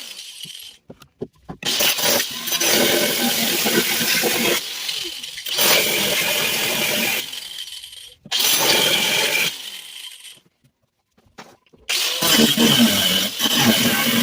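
Grinder cutting and grinding away a sheet-steel car floor pan. It comes in several hard runs of a few seconds each, broken by abrupt stops, with a silent gap of over a second near the end before it starts up loud again.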